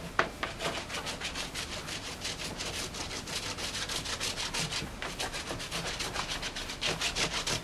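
Rhythmic rubbing or scraping strokes by hand, about three to four a second, with a short break about five seconds in.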